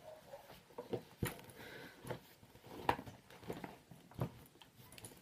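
Handling noise as a handbag and its contents are moved about: a handful of irregular soft knocks and rustles.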